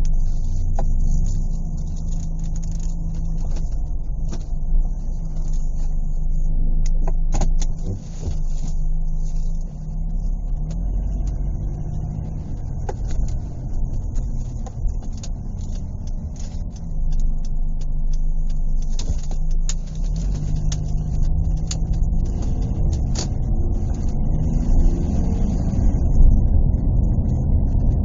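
Car driving, heard from inside the cabin: a steady low engine hum and road rumble with a few small clicks and rattles. After about twenty seconds it grows louder and the engine note rises.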